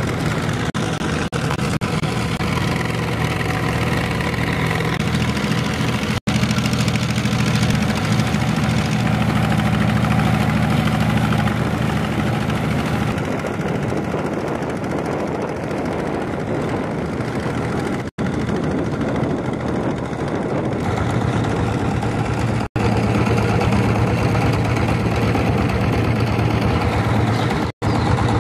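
A motorboat engine running steadily, a low hum with water and wind hiss over it, breaking off for an instant a few times.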